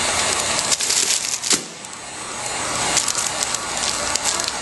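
Heat gun blowing hot air on its low setting over PVC shrink film wrapped around a book, with a steady hiss and the film crackling and snapping irregularly as it shrinks. The hiss dips briefly about one and a half seconds in.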